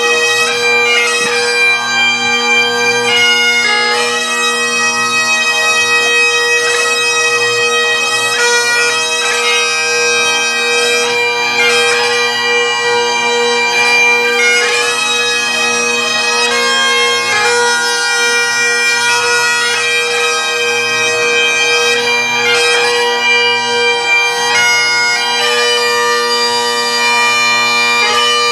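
Bagpipes playing a melody over their steady, unbroken drones.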